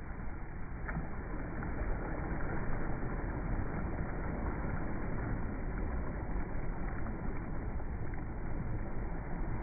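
Small waves breaking in the shallows and washing up over wet sand, a steady rush of surf with no break.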